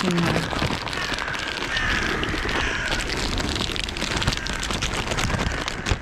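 Dense crackling and rustling handling noise close to the microphone, with crows calling faintly in the background.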